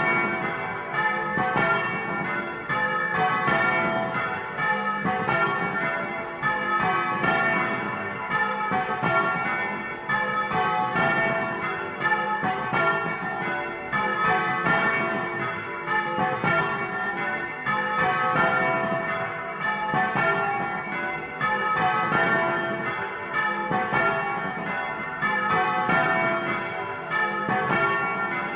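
Several bronze church bells swung by hand with ropes, ringing together in a rapid, continuous run of overlapping strokes, heard close up from inside the belfry: a festive Easter peal announcing the Resurrection.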